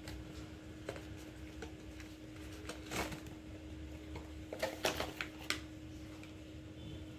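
Hands opening a cardboard product box and pulling out a pouch: scattered clicks and crinkles of card and packaging, with sharper ones about three seconds in and a quick cluster around five seconds in, over a steady low hum.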